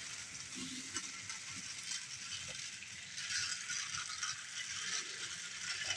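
Thomas & Friends toy trains running on their track: a steady mechanical rattling whir of small gears and wheels, a little louder about halfway through.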